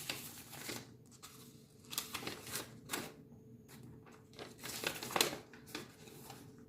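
Packaging being handled and unwrapped: scattered, faint crinkling and rustling.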